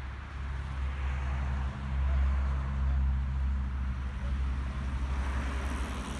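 A steady low engine hum, with a rushing hiss that swells about five seconds in.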